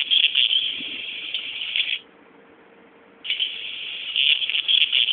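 Small speaker of a voice playback board buzzing harshly when its message pin is triggered. The sound stops about two seconds in and starts again about a second later.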